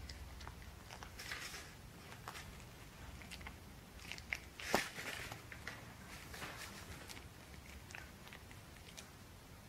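Border Terrier puppy chewing and tugging at a shoelace close up: many small, irregular clicks and rustles of teeth on the lace, with one louder sharp snap about halfway through.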